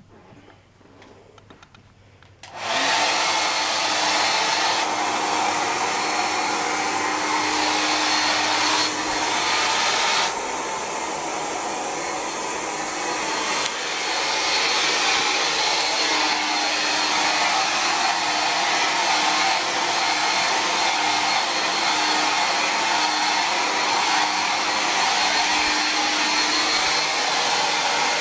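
Handheld hair dryer switching on about two and a half seconds in, then blowing steadily with a constant hum, drying damp clothes. It dips a little in level for a few seconds midway.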